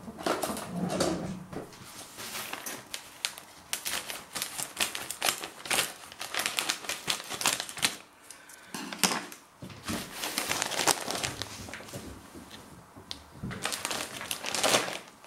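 Plastic snack bag of Herr's cheese curls crinkling and crackling as it is cut open with scissors and handled, a quick irregular run of clicks and rustles. A louder rustle near the end as the bag is picked up.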